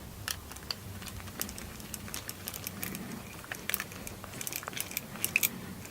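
Hand driver tightening screws on a sheet-metal printer bracket: scattered, irregular light clicks and ticks of the tool and metal parts.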